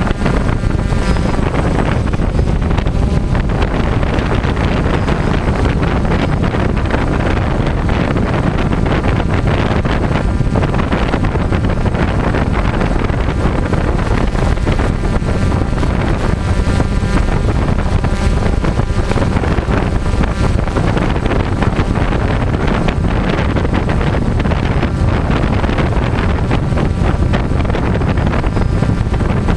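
DJI quadcopter in flight: the whir of its motors and propellers, mostly buried under heavy wind buffeting on its onboard camera's microphone, steady throughout.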